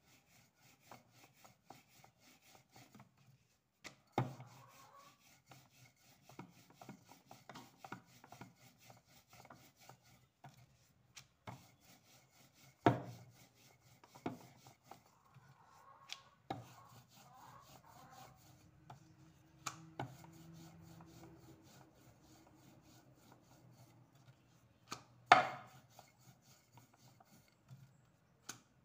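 Rolling pin rolling wheat dough dusted with flour out on a round wooden board: soft rubbing and scraping, broken by a few sharp knocks, the loudest about 13 and 25 seconds in.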